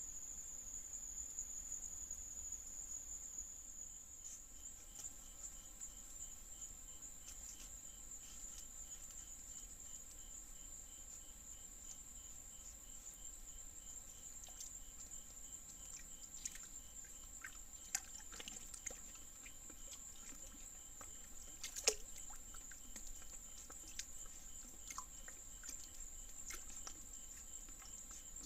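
Crickets and other night insects singing in a steady high-pitched drone, with a fainter insect pulsing evenly at a lower pitch. Scattered small clicks and knocks come in the second half, the loudest about three-quarters of the way through.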